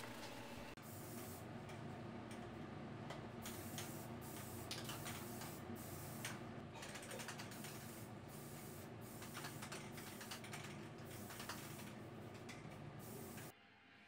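Aerosol spray paint cans hissing in short, irregular bursts, faint over steady background noise, as ceiling-fan parts are sprayed white; the sound cuts off suddenly near the end.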